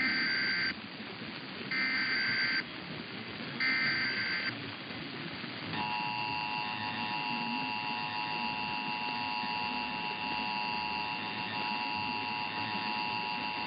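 Emergency Alert System SAME header: three short, screechy digital data bursts, one about every two seconds. About six seconds in, the steady EAS two-tone attention signal starts and holds, the alert tone that announces a required monthly test.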